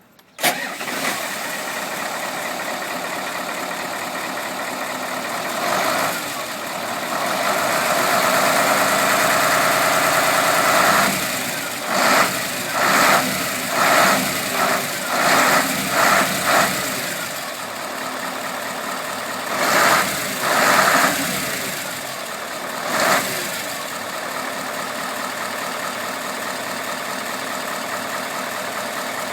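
Mitsubishi Fuso Super Great heavy truck's V8 diesel engine, freshly refilled with new oil, running smoothly at idle. It is held at higher revs for a few seconds, then blipped in a string of about six short revs and three more later, settling back to idle between them.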